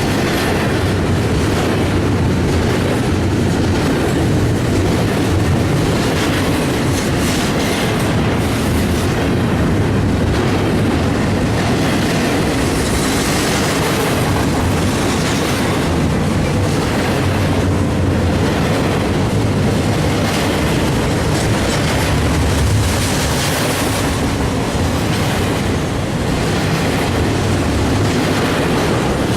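Double-stack container freight train rolling steadily past, its wagons making a continuous rumble and clatter on the track.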